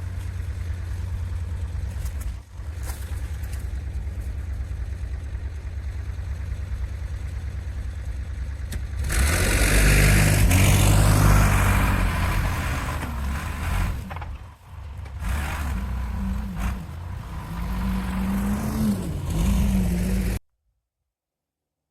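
Doosan DX35z mini excavator's diesel engine running steadily, then working harder and louder with a rush of noise for about five seconds from about nine seconds in. After that its pitch rises and falls, and the sound cuts off suddenly shortly before the end.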